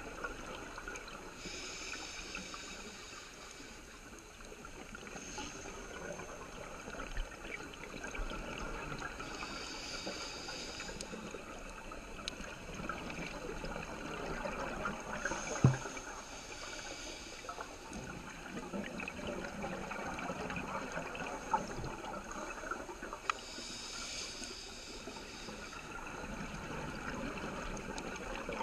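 Scuba diver breathing through a regulator underwater: a hiss of inhalation every seven or eight seconds, with bubbling exhalation between, over a steady underwater hiss. One sharp click about halfway through.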